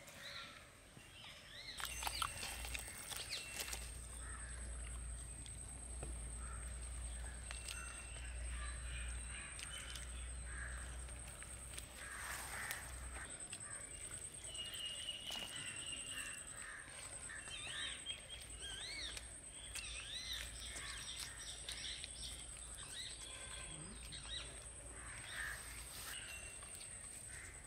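Faint outdoor ambience of birds calling in short chirps, over a steady high-pitched whine, with a low rumble during the first half.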